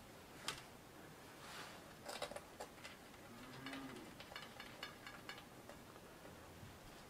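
Faint small metallic clicks and light ticking as fingers turn the threaded valve of a bicycle tyre, with a couple of short soft hisses early on.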